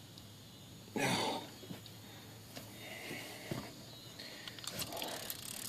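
Angler breathing hard through his nose: a loud sniff about a second in, then softer breaths, with a few faint clicks near the end.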